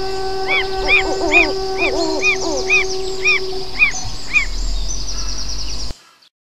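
Bird calls repeating about twice a second over a steady high hiss and several sustained tones. It all stops abruptly about six seconds in, giving way to silence.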